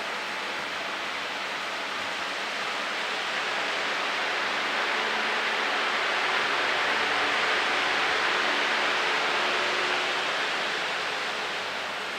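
Sonnenkönig pedestal fan running, a steady rush of air over a faint motor hum. The air noise swells through the middle seconds and eases off again near the end.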